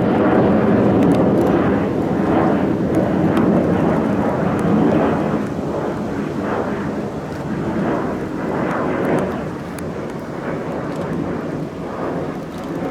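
Airplane flying past, a continuous rushing engine noise that is loudest in the first few seconds and eases somewhat later on.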